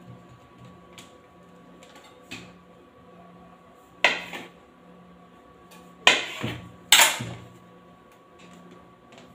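Kitchen knife cutting dough into pieces, the blade knocking sharply on the hard counter a few times. The loudest knocks come about four, six and seven seconds in.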